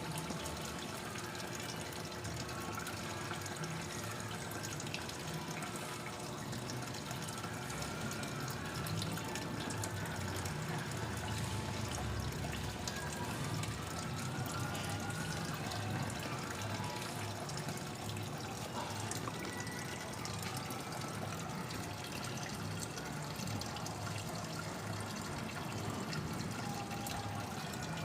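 Water running steadily into an automatic washing machine's tub as it fills.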